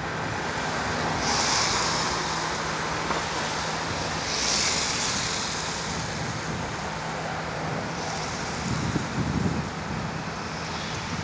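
Wind buffeting the microphone in gusts, with two stronger gusts about a second and a half and four and a half seconds in, over a steady low background hum.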